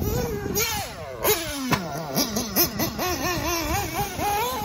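Radio-controlled off-road buggy's motor revving up and down with the throttle, its pitch wavering several times a second. About a second in the pitch drops steeply, then climbs again.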